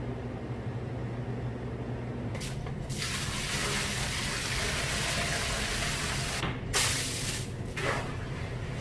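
A steady machine hum with a loud rushing, spraying hiss that starts about three seconds in and cuts off sharply after about three and a half seconds. Shorter bursts of the same hiss come near the start and twice near the end.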